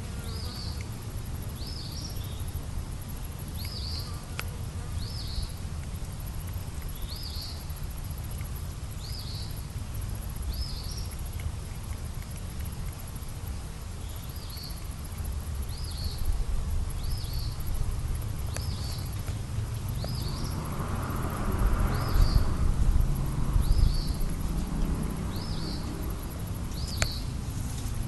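Chirping from a small animal outdoors: a short high chirp repeats about once a second, over steady low background noise. The background grows louder for a few seconds about twenty seconds in.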